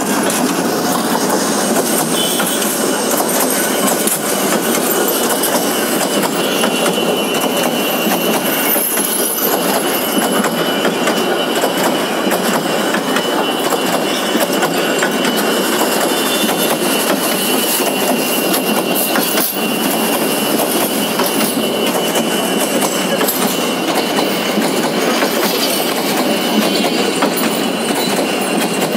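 Bangladesh Railway passenger train passing at speed close by: a steady loud noise of coaches and wheels running over the rails, with a thin steady high whine over it.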